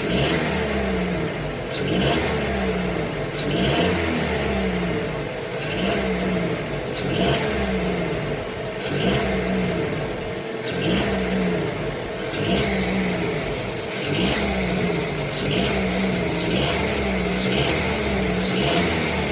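Jeep Renegade 1.3 T270 turbocharged four-cylinder engine revved again and again in short blips, each one falling back. The blips come about every two seconds, quickening near the end. The owner asks whether a noise in it is a piston pin knocking.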